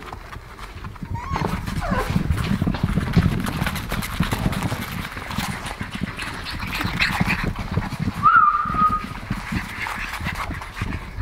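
English bulldog puppies scampering and tussling on a hard floor: claws clicking, paws thumping and bodies scuffling, with a short high squeal about a second in and another near eight seconds in.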